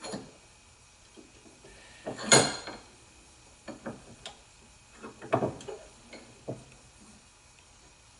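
Sharp metallic clinks and knocks from small metal parts and hand tools being handled, with the loudest about two seconds in and a cluster of them a little past five seconds.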